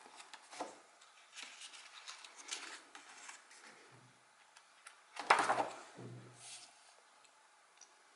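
Pages of a paperback book being turned and pressed flat by hand: paper rustling and swishing in irregular strokes, the loudest page turn about five seconds in.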